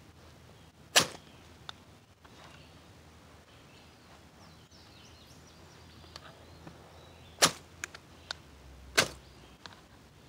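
Ferrocerium (ferro) rod struck with a steel striker over a tinder bundle: three sharp scrapes, one about a second in and two close together near the end, with a few fainter ticks between.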